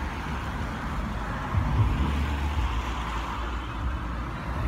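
Road traffic passing: a steady wash of engine and tyre noise, with a heavier low rumble swelling about one and a half seconds in as a vehicle goes by.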